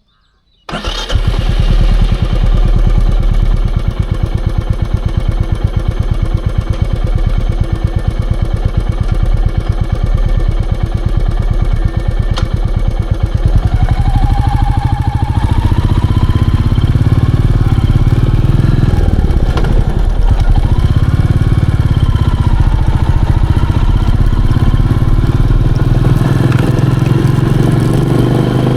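Royal Enfield Meteor 350's single-cylinder engine starts up suddenly about a second in and runs with a fast, even pulse. From about halfway the engine note shifts and grows heavier as the revs change.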